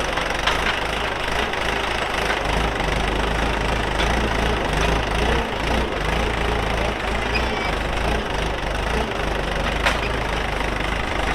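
Farm tractor's diesel engine running steadily, with a constant low throb. A single sharp click sounds near the end.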